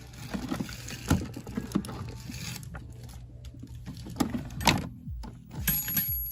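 Plastic clicks and knocks from a robot vacuum being handled and seated on its charging dock, scattered over a steady low hum.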